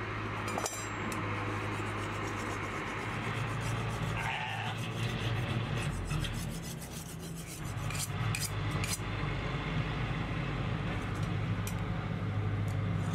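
Steel blades being scraped against each other to sharpen them, in scattered rasping strokes. A tractor engine drones steadily underneath.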